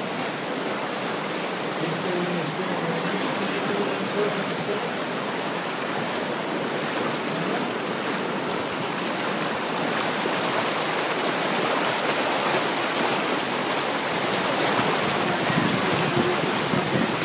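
Whitewater river rapids rushing steadily, growing slightly louder in the second half.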